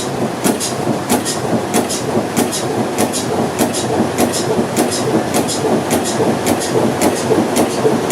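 Large old stationary diesel engine running slowly and steadily: a constant mechanical rumble with a regular rhythm of sharp ticks, mostly in pairs, a little under twice a second.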